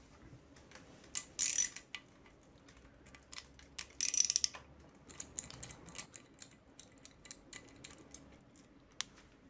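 Socket ratchet clicking in two quick runs, then lighter scattered clicks and metal taps, as the mounting bolts of the cam chain tensioner on a 2013 Honda CBR250R engine are loosened and backed out. One sharp click sounds near the end.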